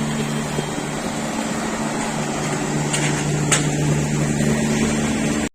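Steady low mechanical hum of running machinery, with two faint taps about three seconds in.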